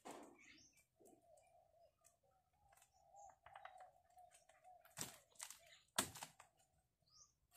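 Plastic snap clips being pressed onto PVC pipe to lock down plastic sheeting: scattered light clicks and ticks, the two sharpest about five and six seconds in, over a faint wavering steady hum.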